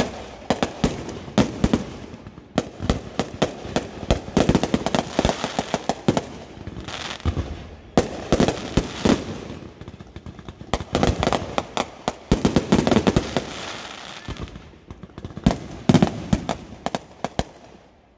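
Firecrackers going off in rapid strings of sharp bangs and pops. They come in several runs with short lulls between them and fade near the end.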